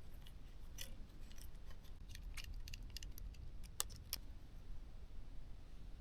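Light, irregular clicks and ticks of a small screwdriver and tiny parts against the drone's plastic housing as the board is screwed down; the clicking stops a little after four seconds in.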